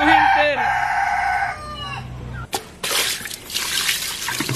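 A rooster crows once: a long call that rises, holds and trails off about a second and a half in. About three seconds in, a rushing hiss of noise starts.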